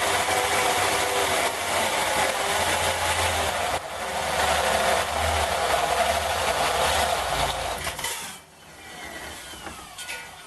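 Electric drill cutting through soft aluminium with a carbide-tipped hole saw, a loud steady grinding whine over a worn, noisy drill gearbox. The cut stops about eight seconds in and the noise drops away.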